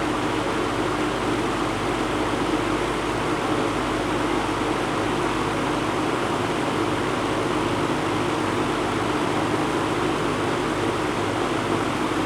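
Vintage 24-inch Pencrest reversible box fan running steadily on high speed in reverse: an even rush of moving air with a hum beneath it.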